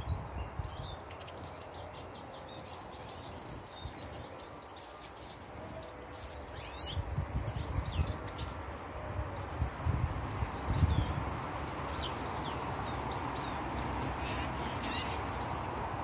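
Small finches chirping and twittering around garden bird feeders in short, scattered high calls, with a few low thumps about halfway through and again past ten seconds.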